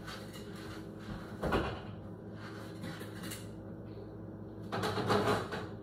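Faint kitchen handling noises over a steady low hum: a short one about a second and a half in and a longer one near the end.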